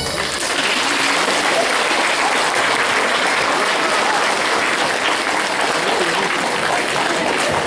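Audience applauding steadily, starting just as the music stops.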